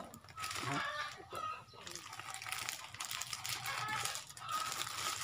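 Plastic snack wrapper and bread bags crinkling as they are handled and opened.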